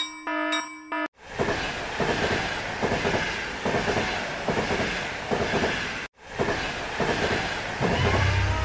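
Railroad crossing bell ringing twice. About a second in, an abrupt cut to a train passing with its wheels clacking and rattling. A second abrupt cut about six seconds in leads to more train noise, with a low engine hum near the end.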